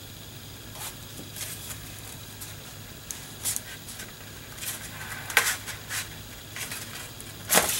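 A heavy kraft-paper notebook insert being handled and its pages flipped: scattered short rustles and taps, the loudest near the end, over a faint steady low hum.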